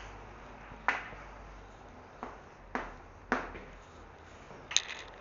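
A few sharp taps or knocks, spaced roughly half a second to a second apart, with a quicker cluster of taps near the end.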